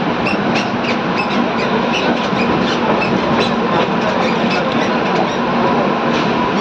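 Shatabdi Express passenger train running on the track: a steady rumble with many light clicks and rattles, and a faint steady hum underneath.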